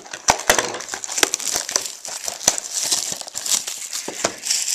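Plastic shrink wrap being torn and crumpled off a factory-sealed box of trading cards: a dense run of crinkles and crackles.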